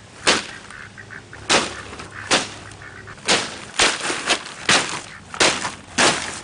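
Bags of pond pebbles being set down one after another on a concrete patio: a series of about nine short thuds, roughly one every half-second to second.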